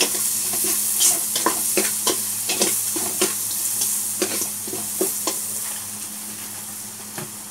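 Ginger, garlic and onion sizzling as they sauté in oil in a metal pot, while a metal spoon stirs and clinks against the pot's sides in quick, irregular knocks. The stirring stops about five seconds in and the sizzling grows quieter.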